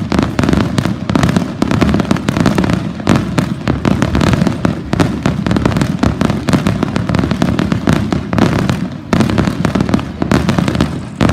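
Fireworks display: a loud, dense barrage of overlapping shell bursts and crackling, with a brief lull about nine seconds in.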